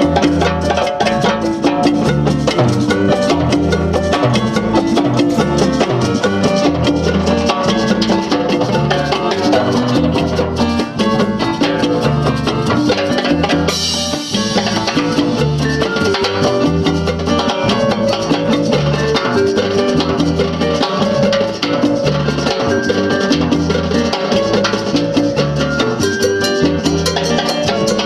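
Live Afro-Cuban Latin jazz band playing a steady groove: timbales and percussion over repeating bass notes, with a bright cymbal crash about halfway through.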